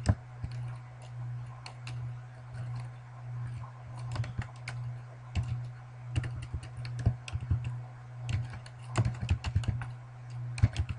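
Typing on a computer keyboard: irregular keystrokes in short clusters, over a steady low hum.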